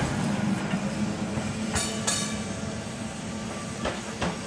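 Heritage electric tram running past, its steady hum fading as it goes, with two pairs of sharp clicks from its wheels crossing rail joints.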